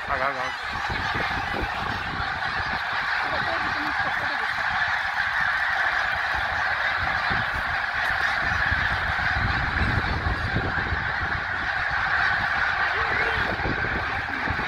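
A huge flock of snow geese calling in flight overhead: thousands of high honks merging into one dense, continuous chorus.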